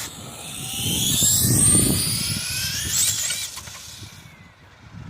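Traxxas Sledge RC monster truck's brushless electric motor whining high and rising in pitch as the truck accelerates, over a low rush. The sound fades out about four seconds in as the truck pulls away.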